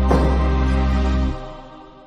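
Background music with sustained held chords, fading out over the last part.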